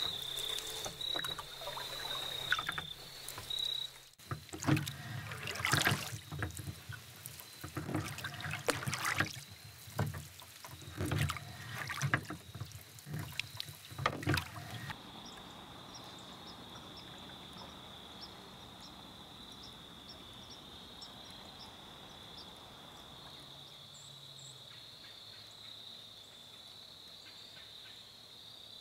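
Irregular splashes and sloshes of water around a small boat being paddled, with the steady high chirring of crickets behind. About halfway through the splashing stops, leaving only the constant insect chirring over a quiet night hush.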